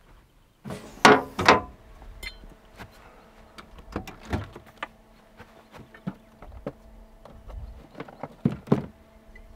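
Two loud thunks about a second in, then light clicks and knocks as the latch of a camper's built-in fridge is worked, the fridge door is opened and things inside are handled, over a faint steady hum.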